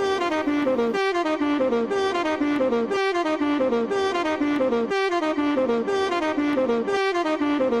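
Background music: a jazzy saxophone line, a falling run of notes that repeats as a loop about every two seconds.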